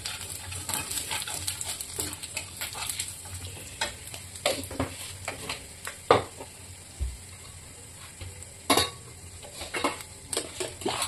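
Carom seeds (ajwain) and spices sizzling in hot oil in a kadhai, with a steady hiss. A steel spatula stirs and scrapes against the pan, giving scattered sharp clicks and a few louder knocks.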